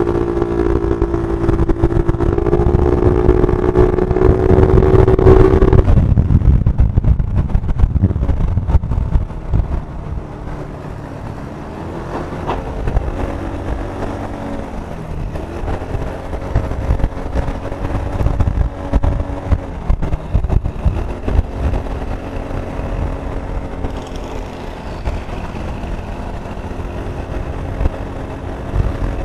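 Vehicle engine running, its pitch holding steady and then shifting up and down, over a heavy low wind rumble that is strongest in the first six seconds, recorded through an action camera's external microphone covered in foam and fur.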